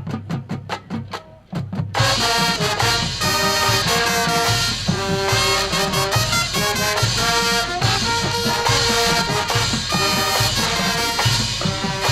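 High school marching band playing: a few seconds of percussion alone, then the full brass section and drumline come in loudly about two seconds in, with sustained trumpet and trombone chords over steady drumming.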